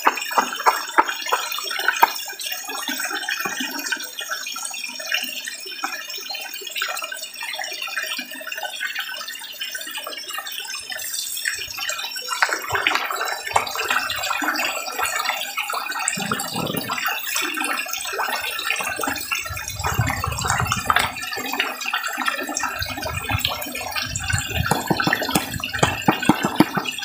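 A crowded school of red tilapia splashing at the water surface in a feeding frenzy, a continuous patter of many small splashes that grows busier about halfway through. The frenzy is the sign of fish with a strong appetite, still eager for more feed.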